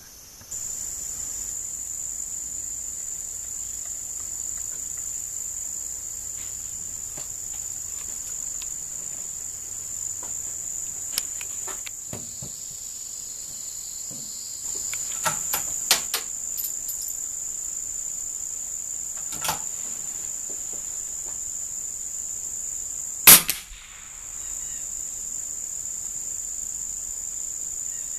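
Steady high chirring of insects, with a few light clicks and knocks through the middle. About 23 seconds in comes a single sharp crack, the loudest sound: a .22 rimfire shot from an Anschutz 1913 BR50 target rifle.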